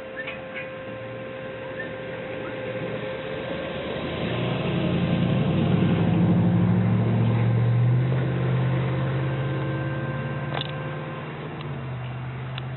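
Diesel locomotive engines drawing near and passing, a low steady drone that grows to its loudest about halfway through and then fades. A thin steady higher tone runs alongside and cuts off with a click near the end.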